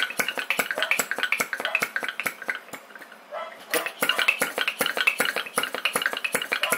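A PM Research #3 flame licker vacuum engine running and driving a small homemade gold battery stamper, with rapid metallic clicking and clattering at about six to seven a second. The clicking thins out about two and a half seconds in, then picks up again just before four seconds; the engine's speed depends on where the burner flame sits.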